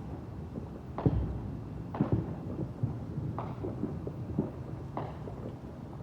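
Fireworks bursting: a run of booming bangs at irregular intervals, roughly one a second, the loudest about a second in and another pair around two seconds in, with smaller pops between them over a low rumble.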